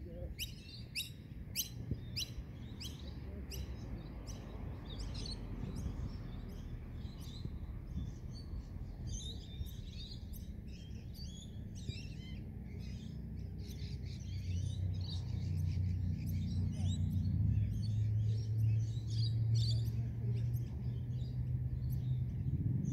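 Birds chirping, with a quick run of short falling chirps in the first few seconds and scattered chirps after. A low steady hum grows louder in the second half.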